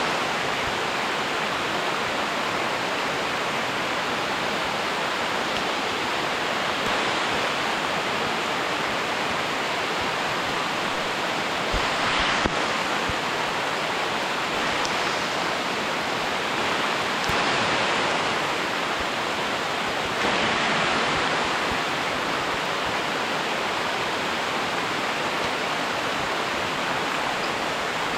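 Steady rushing of water, an even hiss that swells briefly a few times, with one short knock about twelve seconds in.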